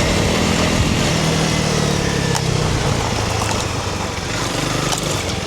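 Honda CRF300 Rally's single-cylinder engine running as the bike is ridden, its revs dropping about halfway through, over a steady rush of wind and tyre noise with a few sharp clicks.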